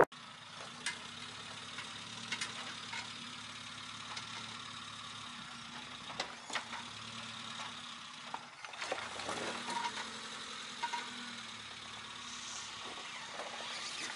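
Small 4x4's engine running at low revs as it crawls over rocks, with scattered clicks and knocks of tyres and rock.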